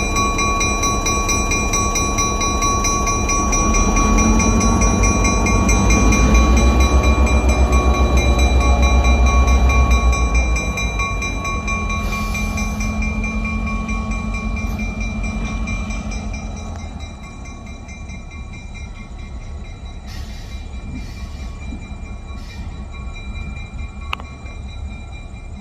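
East Penn Railroad GP9R diesel-electric locomotive running as it moves over a grade crossing. Its engine loads up loudly about four seconds in, eases after about ten seconds and fades as it moves away. The crossing bell rings alongside.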